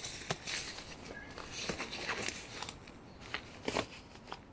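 Nylon sleeping bag, inflatable sleeping mat and pillow being handled and arranged: irregular rustling and crinkling of synthetic fabric, with a few sharp taps.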